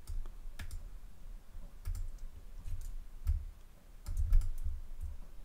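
Scattered clicks of a computer mouse and keyboard at uneven intervals, with dull low thuds from the desk underneath.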